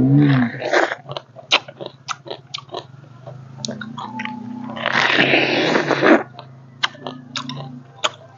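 Pomegranate arils being bitten out of the fruit and chewed: a run of short wet crunches and clicks, with a longer, louder stretch of crunching about five seconds in.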